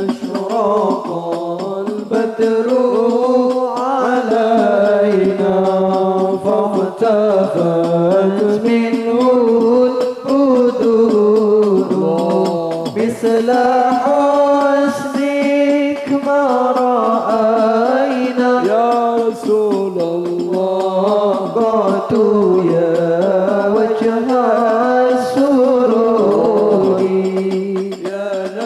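A man singing a sholawat (Islamic devotional praise) melody into a microphone over a PA, in long, drawn-out, slowly winding notes.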